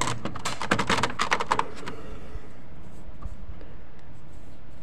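Rapid clicking clatter of a rolled-up roller shutter's slats being pushed and shifted by hand on its roller, realigning the misaligned shutter. The clatter stops about two seconds in.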